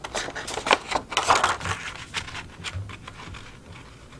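Lightweight kraft craft paper rustling and scraping as it is handled and pressed flat, with scissors being worked under its edge. The noises are loudest in the first half and grow softer toward the end.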